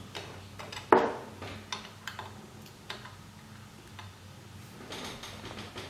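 A few short, sharp clicks and taps of hard 3D-printed plastic parts being picked up off a glass print bed and knocked against each other, the loudest about a second in.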